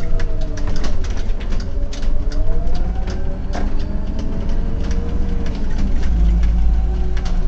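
Autosan M12LF CNG city bus heard from the driver's cab while driving through a turn. The engine runs with a steady low rumble, a whine slowly rises and falls in pitch, and frequent small rattles and clicks sound from the cab fittings.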